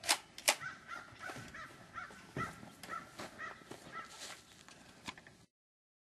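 A bird calling over and over, a quick series of short calls about three a second, after two sharp clicks. The sound cuts off suddenly near the end.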